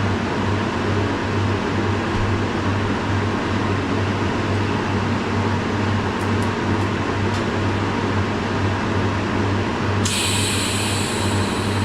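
AC TIG welder buzzing as it welds aluminium, a low hum pulsing steadily about two to three times a second. A hiss joins near the end.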